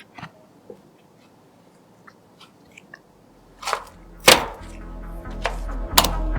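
Faint scattered clicks and taps, then electronic background music fading in about three seconds in with a rising deep bass and a few sharp hits.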